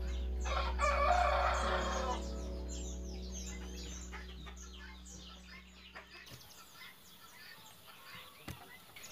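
A rooster crows once, starting about half a second in and lasting over a second, over small birds chirping. Soft background music fades out about six seconds in.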